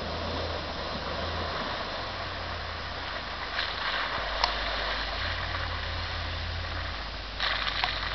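Nissan Patrol GU 4WD's engine running as it drives through mud holes, with splashes of mud and water from the tyres about halfway through and again near the end.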